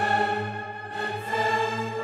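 Background music: a choir holding long sung notes over orchestral accompaniment, the chord shifting about a second in.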